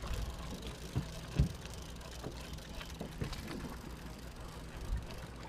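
Charter fishing boat's engine running steadily at idle, a low hum, with a few short knocks on deck, the loudest about a second and a half in.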